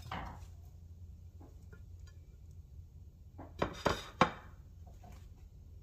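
Ceramic dishes clinking and knocking against each other and the countertop: one knock at the start, then a quick cluster of clatters about three and a half to four seconds in, as a dinner plate is handled and moved.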